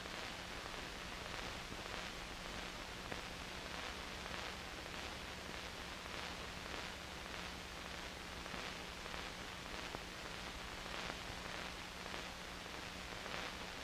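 Steady hiss of an old soundtrack carrying no recorded sound, with a low steady hum beneath it and a few faint crackles.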